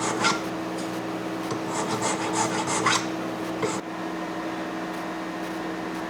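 A file rasping against the metal of a ring's repaired shank in short back-and-forth strokes, a quick run of them in the first three seconds, then quieter, smoothing down the weld. A steady low hum runs underneath.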